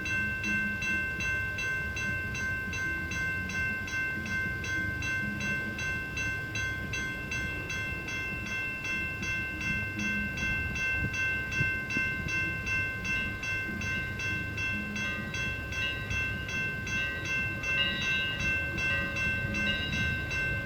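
Santa Fe 3751, a 4-8-4 steam locomotive, ringing its bell steadily at about two to three strokes a second over the low rumble of the passing train.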